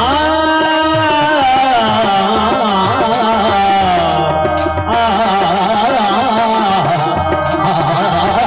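Qawwali music: a lead voice sings long, wavering, ornamented lines over harmonium and tabla.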